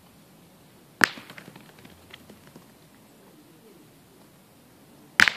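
Thrown steel pétanque boules striking on a shooting throw: two sharp clacks, one about a second in and a doubled clack near the end, each followed by a few small rattling ticks.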